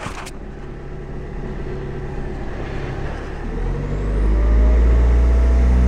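Swapped-in VW 2.0 L common-rail TDI four-cylinder diesel running just after a cold start at minus 17 °C. It idles steadily, then runs clearly louder from a little past halfway.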